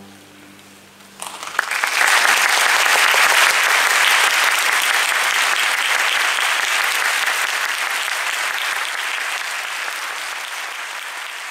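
An orchestra's final chord dies away, and about a second in an audience breaks into steady applause that slowly tapers off.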